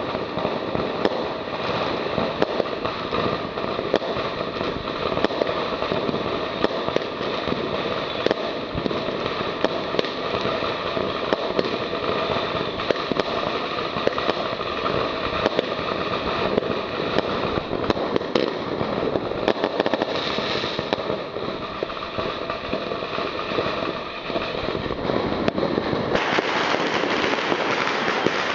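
A 111-shot consumer fireworks cake firing tube after tube: a dense, unbroken stream of launches and bursting reports, getting louder near the end.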